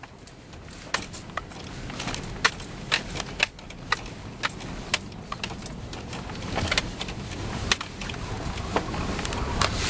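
Inside the cab of a Chevy S10 pickup driving over rough, snow-covered ground: a low engine and tyre rumble that grows louder, with frequent sharp knocks and rattles as the truck jolts over the bumps.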